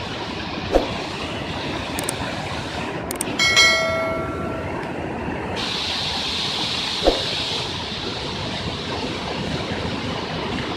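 Steady rushing noise of floodwater and storm, with two sharp clicks. About three seconds in, a few quick clicks lead into a bell-like ding from a subscribe-button animation, which rings for over a second.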